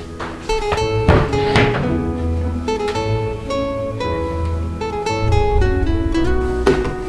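Background music: acoustic guitar playing a plucked, flamenco-style melody over a steady bass line, with a few sharp strums.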